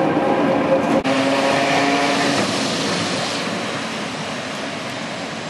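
Vintage Porto tram running, first heard on board as a steady whine over rumbling running noise, with a sharp click about a second in. Then comes a plainer running noise that slowly fades as the tram moves away along the track.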